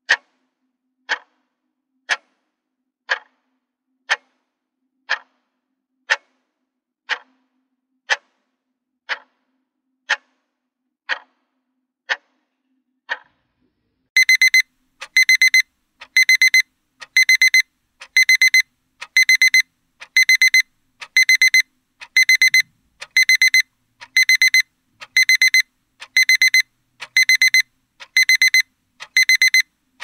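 A clock ticking about once a second, then about fourteen seconds in a digital alarm clock starts beeping: quick clusters of short high beeps repeating about once a second.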